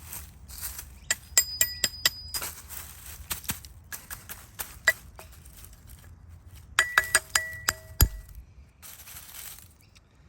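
Digging in soil with a metal hand tool: scraping, with a quick run of sharp metallic clinks that ring briefly about a second in and again near seven seconds.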